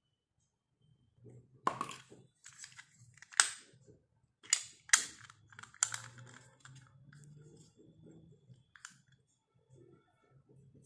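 Small hard-plastic miniature dollhouse furniture being handled and set down on a table: several sharp clicks and taps, the loudest in a cluster between about three and six seconds in.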